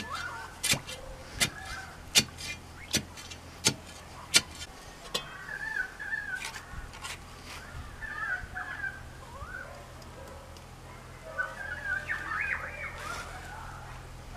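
Steel digging bar stabbed into the soil of a post hole: seven sharp strikes about every three-quarters of a second, stopping about four and a half seconds in. After that, birds chirp and call in short bursts.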